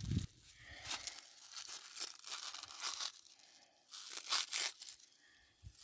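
Dry husks being torn and peeled by hand off a small ear of popcorn maize, crackling and rustling in several short spurts.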